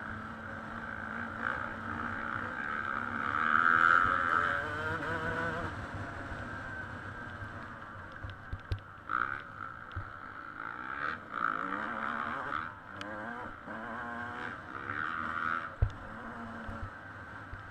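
Dirt bike engine running under the rider, its pitch rising and falling as the throttle opens and closes around the motocross track, with a few sharp knocks from the bike going over bumps, the loudest near the end. Heard from an onboard camera.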